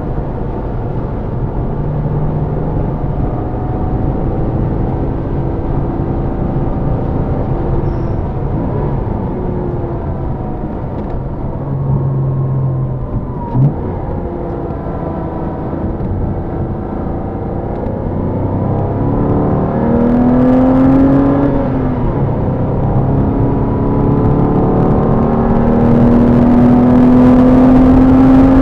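Porsche engine heard from inside the car on track, its pitch falling and rising through the gears and accelerating harder toward the end. There is a single brief knock about halfway through.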